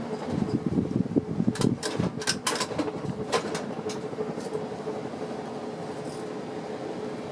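Plastic 1980s Emerson ceiling fan running, with a steady whirr and a thin motor whine. A quick run of clicks and knocks comes about one to four seconds in.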